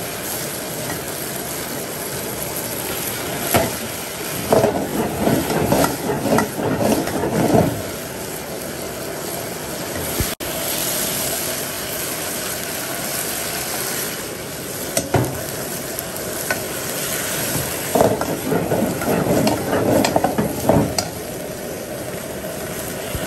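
Food stir-frying in a pan, a steady loud sizzle, with two bouts of a utensil scraping and clattering in the pan, about five seconds in and again near the end.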